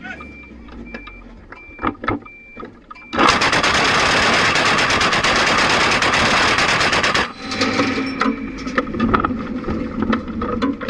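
Twin-barrelled anti-aircraft gun firing one long burst of rapid shots lasting about four seconds, starting about three seconds in. A few knocks come before it and mechanical clattering follows.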